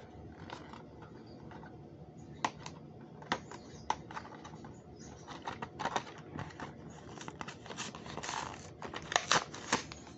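Matchbox blister card being worked open by hand: the stiff clear plastic bubble and cardboard backing give off irregular sharp clicks and crackles, with a quick cluster of louder snaps about nine seconds in.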